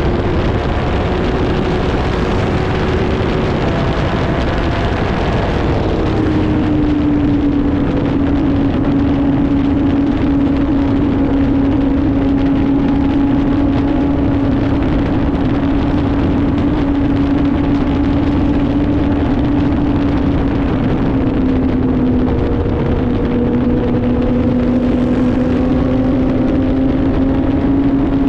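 Motorcycle engine running steadily at highway cruising speed, under heavy wind and road noise on the microphone. The engine note drops about six seconds in, then holds steady, dipping and rising slightly near the end.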